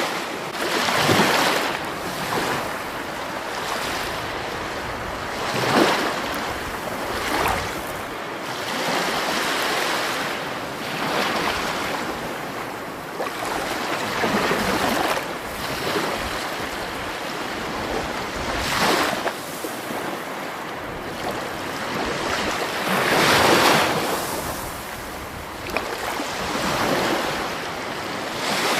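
Rushing water, a steady roar that swells and eases every four to five seconds.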